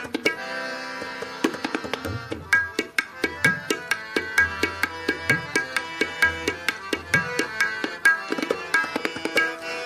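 Tabla keeping a rhythmic pattern over held harmonium notes in an instrumental interlude of Sikh shabad kirtan. Deep bayan strokes bend in pitch now and then.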